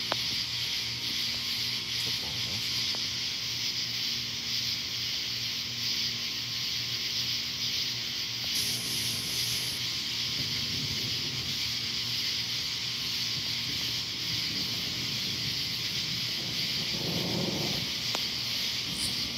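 Steady high-pitched hiss of the outdoor night air, with a brief low rumble about seventeen seconds in.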